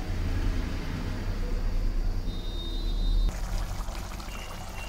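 Thick curry gravy bubbling and popping as it simmers in a steel kadai, heard as fine irregular crackles. For the first three seconds a low rumble lies under it, then cuts off abruptly.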